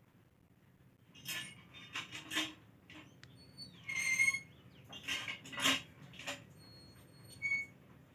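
Kittens playing: scuffling and scraping noises starting about a second in, with a short high squeak about four seconds in.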